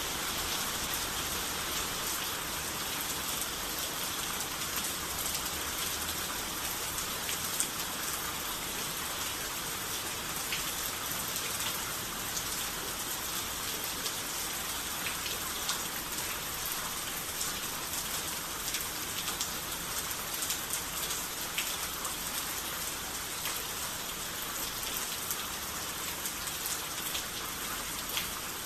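Steady rain falling, with many individual drops ticking sharply on a surface throughout.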